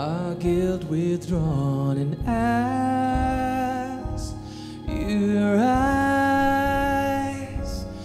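Worship band playing a song: a man sings, holding two long notes, over acoustic and electric guitars.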